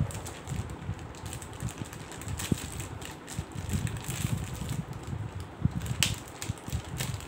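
Scissors cutting through a plastic mailer bag, with the plastic crinkling and rustling as it is handled and a few sharp snips. Under it runs an irregular low rumble on the microphone.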